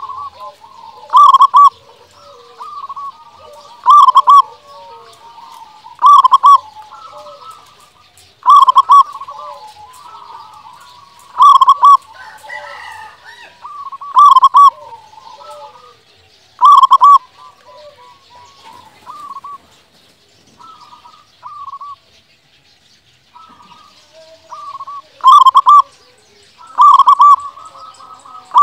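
Zebra dove (perkutut) singing: loud cooing phrases come about every two and a half seconds, with softer notes between them. The loud phrases stop for about eight seconds in the second half and resume twice near the end.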